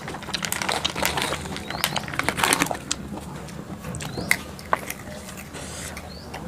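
Close-up eating sounds: chewing rujak of pineapple, rose apple and fried peanuts, with wet mouth clicks and a spoon tapping and scraping a plastic plate. A faint short rising chirp comes back every couple of seconds.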